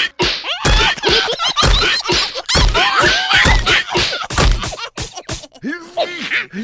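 Cartoon slapstick soundtrack: a run of heavy thumps about a second apart, mixed with squeaky, gliding gibberish character voices. The thumps stop near the end and the voices carry on alone, quieter.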